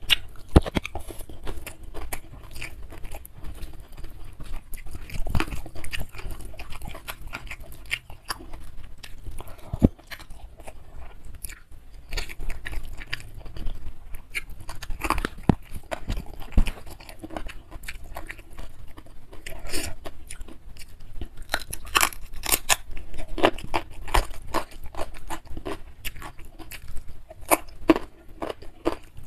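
Close-miked chewing and wet mouth sounds of a person eating nasi padang (rice with grilled fish and curry) by hand. Irregular smacks and small crunches come thick and fast, busiest in the last third.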